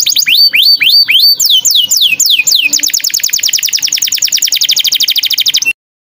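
Small songbird singing loudly: a run of quick rising whistled notes, then a few falling sweeps, then a fast, even trill that cuts off abruptly near the end.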